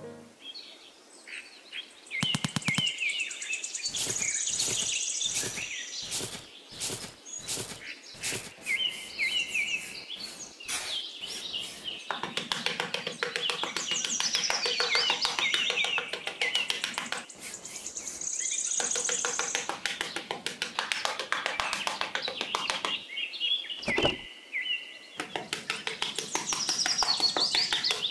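Birds chirping and tweeting, with runs of fast scraping from a small hand trowel working damp sand.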